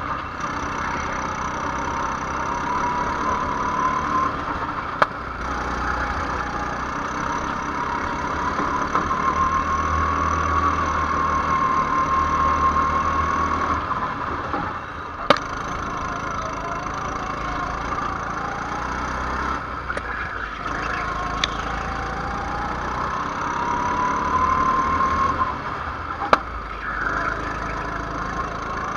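Go-kart engine heard from on board while lapping, its pitch rising and falling with the throttle through the corners. Three sharp knocks cut across it, about five seconds in, midway and near the end.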